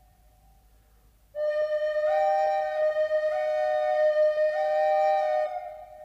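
Flute music: after a quiet first second, a long held note sounds, with a higher note coming in above it twice, then it fades near the end.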